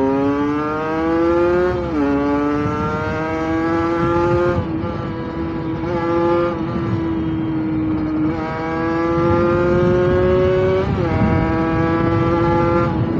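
Kawasaki Ninja RR 150's two-stroke single-cylinder engine accelerating hard through the gears on a test ride after a service: the revs climb steadily and drop at each upshift, about four times.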